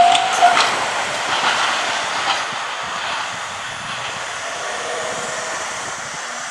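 Japanese level-crossing warning bell ringing in quick even pulses, about two a second, then stopping about half a second in. An Izuhakone Railway Sunzu Line train runs on past with a few wheel clacks over the rail joints, its rumble fading as it moves away.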